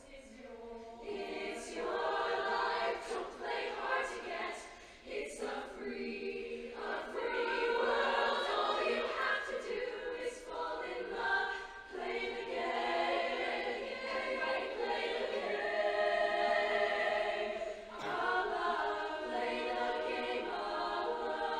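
A large mixed-voice show choir singing sustained chords in harmony, with brief breaks between phrases.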